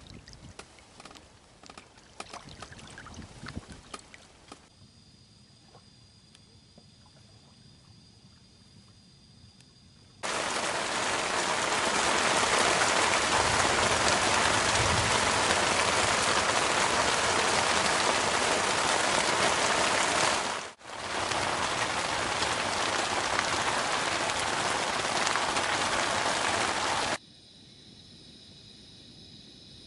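Steady hiss of heavy rain that cuts in abruptly about ten seconds in, drops out for an instant around twenty-one seconds, and cuts off abruptly near the end. Before it, quieter outdoor ambience with light clicks.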